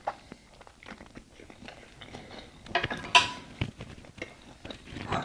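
Close-miked eating sounds: chewing with small clicks of a fork against a dish, and a sharper, louder clink or crunch about three seconds in.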